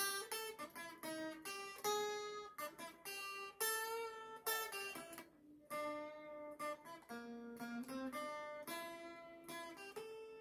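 Guitar being played by hand: a run of plucked notes and short chords, each starting sharply and ringing briefly, with the last note left to ring out at the end.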